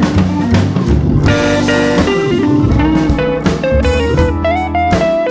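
Instrumental background music with guitar over drums.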